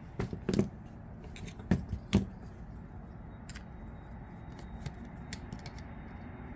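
Small metal hand tools clicking and knocking: four sharp knocks in the first couple of seconds as screwdrivers are handled and set down, then faint scattered ticks while a small precision screwdriver turns a screw in the Vosteed Morel folding knife's handle.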